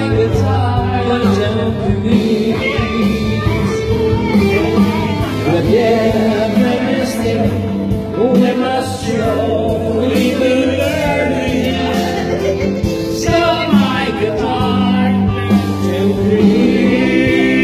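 Music: a song with singing voices over instrumental accompaniment.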